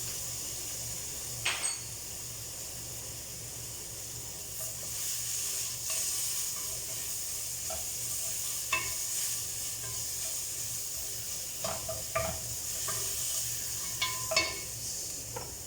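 Garlic, onions and ginger sizzling steadily in hot oil in a pan while being stirred, with a utensil knocking against the pan a few times.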